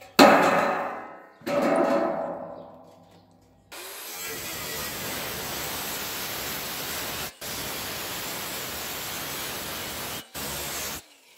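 Two ringing metal clangs from a stainless steel square tube, each dying away over a second or two. Then a Bosch GWS 22-230 H angle grinder cuts into the 1.5 mm stainless tube with a steady hissing cut that breaks off briefly twice.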